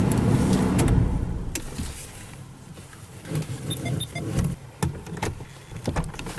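Car running with a low steady rumble that fades out over the first two seconds as it comes to a stop, followed by scattered clicks and light knocks. A few faint high chirps come about four seconds in.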